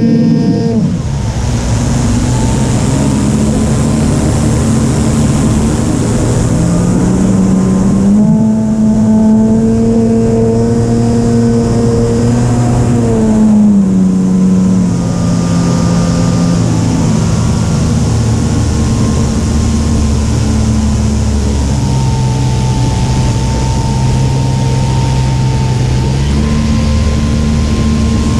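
Radio-controlled model airplane's motor running continuously under a rushing noise, its pitch shifting with the throttle: it climbs about seven seconds in, drops around fourteen seconds, dips lower a little past twenty seconds, then rises again near the end.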